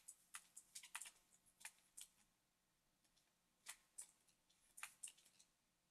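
Faint, irregular clicks of a computer mouse, about a dozen in small clusters, over near silence.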